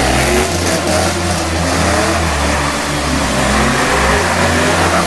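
Ford Mustang police-car replica drifting: engine revving hard with shifting pitch while the rear tyres spin and squeal across the pavement.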